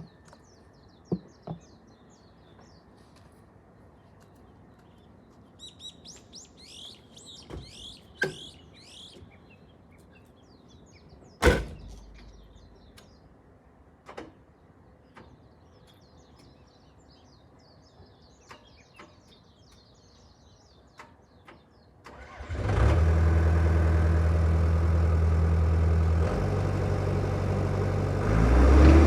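Birds chirping over a quiet background with a few sharp knocks, the loudest about halfway through. About three-quarters of the way in, a backhoe's diesel engine starts and runs steadily, its pitch stepping down and then rising near the end.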